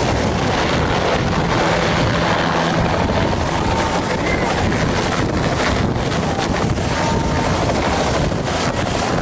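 Two-bladed light helicopter landing and settling onto its skids, engine and main rotor running steadily. Rotor downwash buffets the microphone.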